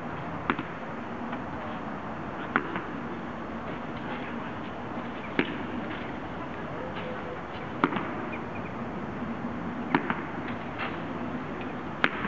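Six sharp knocks, one every two to three seconds, with a few fainter clicks between them, over a steady background rumble in a concrete underpass.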